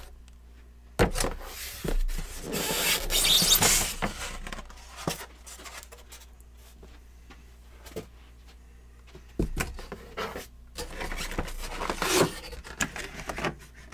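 Packaging being handled: plastic and cardboard rustling and rubbing in two bouts as items are taken from an airbrush kit box, with a few light knocks.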